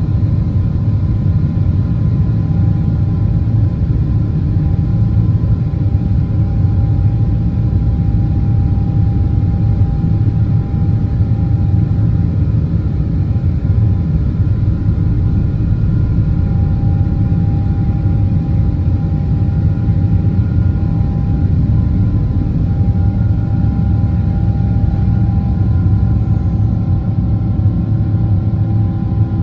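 Cabin noise inside a Boeing 777-300ER: a steady, loud low rumble from its GE90-115B engines and the airflow, with faint steady engine tones above it.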